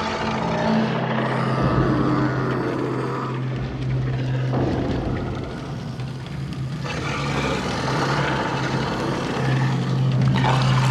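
Dark horror sound-design ambience: a steady low droning hum under a rushing noise that swells and fades, growing fuller about two-thirds of the way through.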